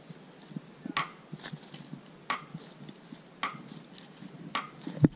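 Increment borer being twisted into a rowan trunk to take a wood core, giving a sharp click with each turn, about one a second.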